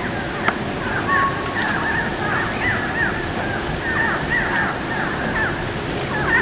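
Birds calling over and over, short chirps that fall in pitch, several overlapping, over a steady rushing background noise.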